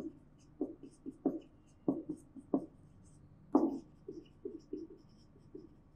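Whiteboard marker writing on a whiteboard in short, quick separate strokes, several a second, with one louder stroke about three and a half seconds in.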